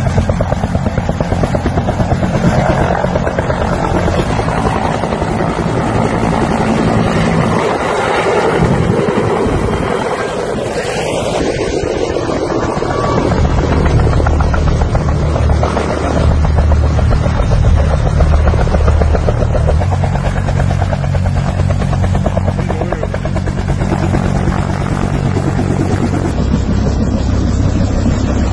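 Bell UH-1H helicopter flying close, loud, its two-bladed main rotor beating in a fast, steady rhythm over the engine's noise.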